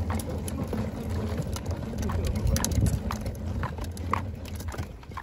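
Plastic wheeled cooler being pulled over concrete: a steady low rumble from its wheels, with scattered clicks and knocks, together with footsteps.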